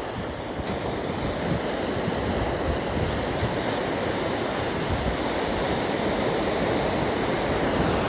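Ocean surf breaking and washing up the sand, a steady rushing that grows slightly louder, with gusty wind rumbling on the microphone.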